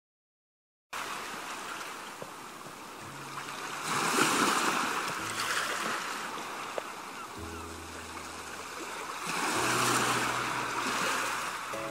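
Sea waves washing onto a shore, a steady hiss that swells twice, about four seconds in and again near ten seconds, starting after a second of silence. Soft music with sustained low notes sits underneath from about three seconds in.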